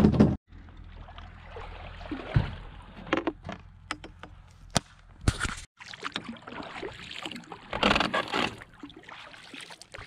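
Double-bladed kayak paddle stroking through calm water from a plywood kayak: swishing and dripping as the blades dip and lift, one stroke louder about 8 seconds in. A few sharp knocks come in the first half.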